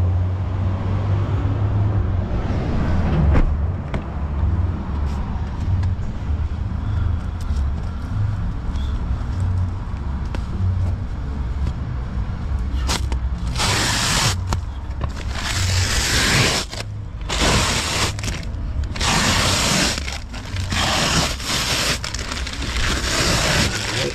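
Plastic protective sheeting being pulled out of a new car's interior, crinkling and scraping in repeated bursts through the second half, over a steady low rumble.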